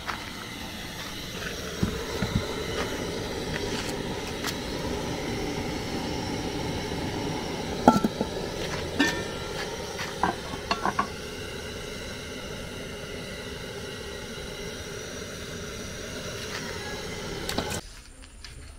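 Aluminium cooking pots, a colander and a metal lid clanking and clinking as they are handled, over a steady background noise. The loudest clank comes about eight seconds in, with a quick run of clinks a second or two later.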